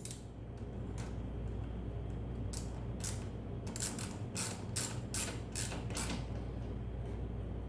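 Socket ratchet wrench clicking in short runs, about three a second, as an 11 mm bolt is tightened down into a threaded hole.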